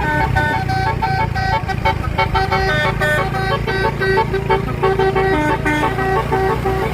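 Indonesian bus 'telolet' horns playing a fast melody of short, stepping notes, over the steady low rumble of bus engines.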